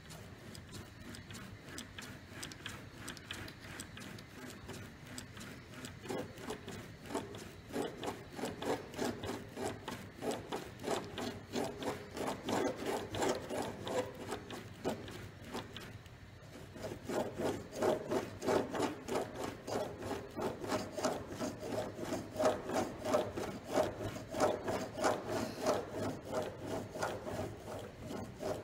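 Model railway wagon's wheels scrubbed back and forth on a paper towel wetted with methylated spirits over the rail, cleaning the dirt off them: a rhythmic rubbing of a few strokes a second. It grows louder about six seconds in, stops briefly near the middle, then resumes louder.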